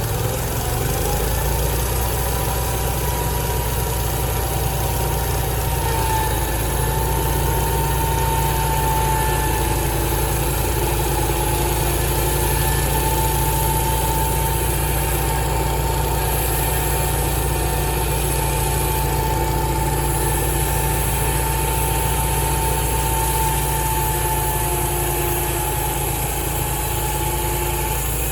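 Sawmill engine running steadily at an even speed, a constant drone with a thin, steady whine on top and no change in load.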